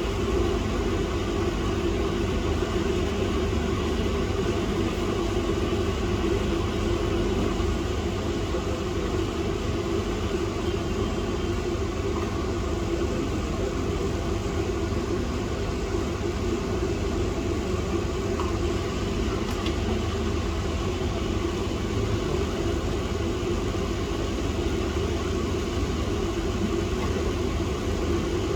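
Steady machine hum that stays unchanged throughout.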